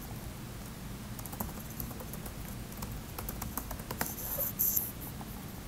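Typing on a computer keyboard: a run of quick key clicks as a user name and password are entered. A brief, louder hiss comes about four seconds in.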